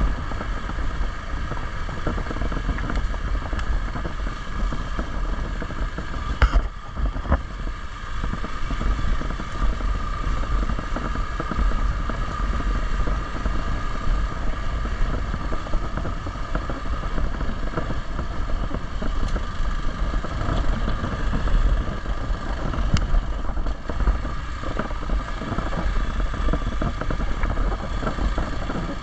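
Hero XPulse 200 single-cylinder motorcycle engine running steadily under way on an off-road trail, with wind rumbling on the action-camera microphone. A couple of short sharp knocks come through, one about six seconds in and another a little past twenty seconds.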